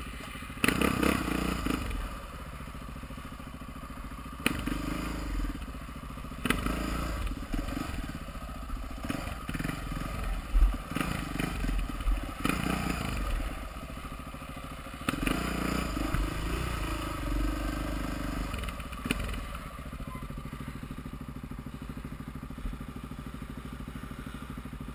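Honda XR650R single-cylinder four-stroke dirt bike engine revving in repeated bursts of throttle, then settling to a steady idle about twenty seconds in.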